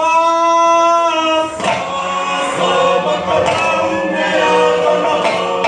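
Group singing for a Fijian dance. It opens with one held note for about a second and a half, then several voices carry the chant together.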